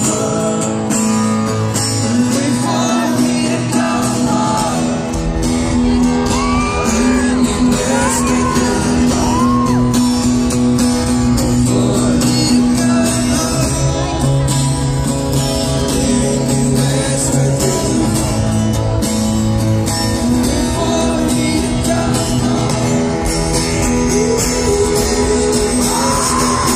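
Live acoustic guitar music with singing, played over a concert sound system in a large hall, with shouts from the crowd.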